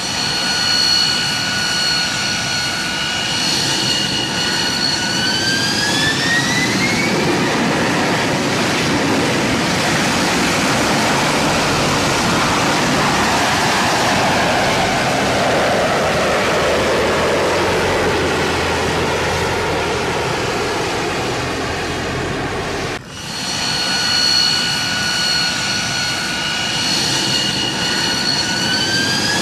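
Jet turbine engine whine that spools up with its pitch rising, giving way to a loud rush of jet thrust that sweeps down in pitch. About 23 seconds in the sound cuts off abruptly and the same steady whine starts again, rising near the end.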